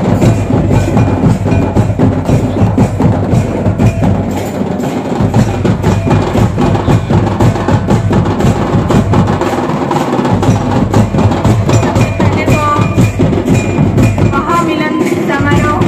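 Santal folk drums, tumdak hand drums and a tamak kettle drum, played live in a fast, steady rhythm for a line dance. A few short high melodic notes join over the drumming near the end.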